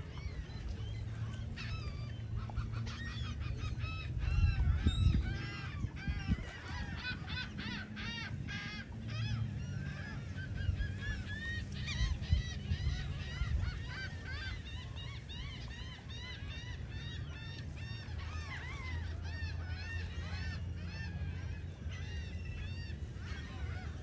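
A flock of gulls calling: many short, overlapping calls, densest in the first half, over a steady low rumble.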